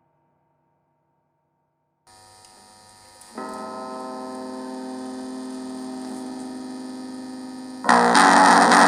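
Music: after a couple of seconds of near silence, a sustained drone of steady held tones with a faint hiss fades in and swells about a second later. Near the end, a loud full band with guitar comes in.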